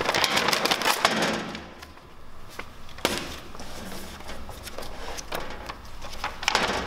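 Glossy 150 gsm paper pages of a bound book rustling, flapping and crackling as the book is flexed and fanned by hand. There are knocks as it is handled against the tabletop, with the busiest bursts at the start, about three seconds in and near the end.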